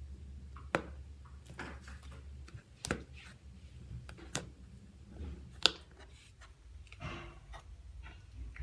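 Unscented cloud slime being squished and stretched by hand, giving soft crackles and a few sharp pops, the loudest about two thirds of the way through, over a steady low hum.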